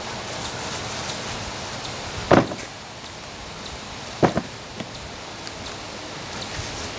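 Digging through the soil of a sweet potato growing tub, with faint scratching and two sharp thumps, one a little over two seconds in and one about two seconds later, over steady outdoor noise.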